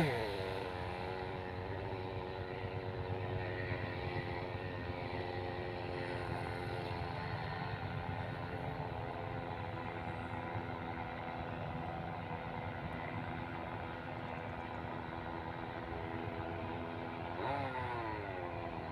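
Engine of a radio-controlled pylon-racing model airplane droning steadily in flight at a distance. Its pitch rises and falls briefly near the end as the plane passes.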